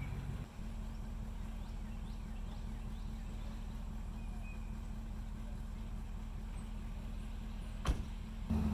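Pickup truck idling with a steady low rumble; near the end its driver's door shuts with a single sharp thump. Faint bird chirps sound once or twice.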